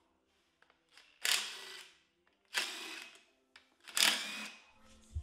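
Cordless impact wrench firing in three short bursts, about a second and a half apart, while parts come off an engine being torn down.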